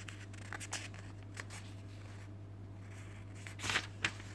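Pages of a thick recipe book being turned by hand: light paper rustles and taps, then a louder page-turn swish with a tap near the end. Under it runs a steady low hum.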